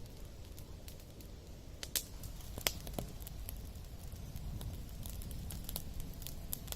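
Wood fire crackling over a steady low rumble, with a few sharp pops about two to three seconds in and smaller crackles scattered later.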